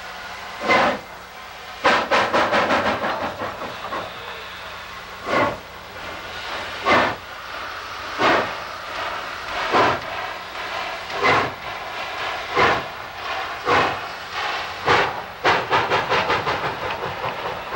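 Chesapeake & Ohio 2716, a 2-8-4 steam locomotive, working a train at low speed: slow, even exhaust chuffs with a hiss, about one every second and a half. There is a quick flurry of rapid beats a couple of seconds in, and the beats come closer together near the end as she picks up speed.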